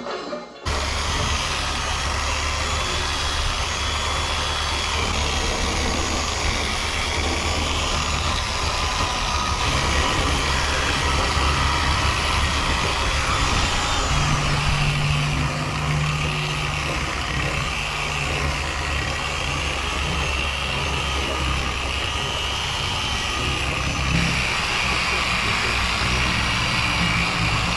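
Power sanders running steadily against a boat's hull bottom, over a constant low engine-like hum.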